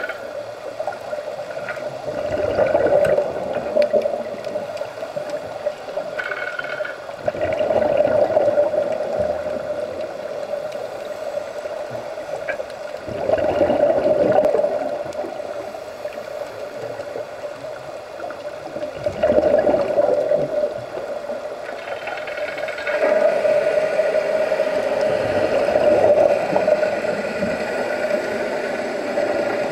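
Underwater sound of scuba regulators: exhaled bubbles gurgling and rushing in surges about every five or six seconds, over a steady hum.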